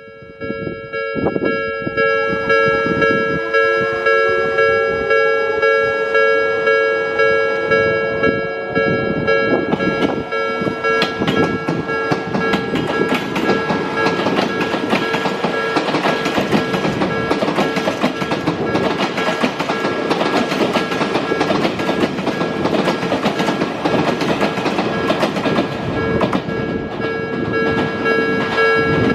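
A Japanese level-crossing alarm rings in a steady repeating pattern while an Odakyu electric train passes over the crossing. A rising whine comes in the first several seconds, then the wheels rumble and clack over the rails for most of the time.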